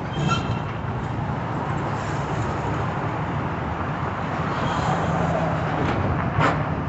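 Heavy demolition machinery running steadily with a low rumble, and a sharp clank about six and a half seconds in.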